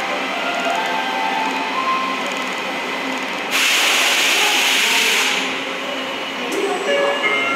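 Tokyo Metro subway train running through a tunnel: steady wheel-and-rail running noise with a faint motor whine. About three and a half seconds in a loud hiss starts suddenly and dies away after nearly two seconds, and near the end a few short motor tones come in.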